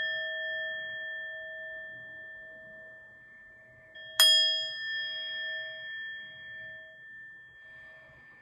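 Hammered metal singing bowl, held on the palm and struck with a wooden mallet, ringing with a few clear overtones and slowly fading. It is struck again about four seconds in, and its lowest tone pulses as it dies away.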